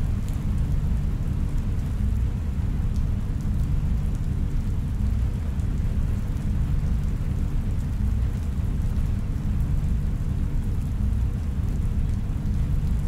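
Steady deep rumbling ambient drone with a faint hiss over it, a continuous synthesized sci-fi room ambience with a rain-and-thunder feel.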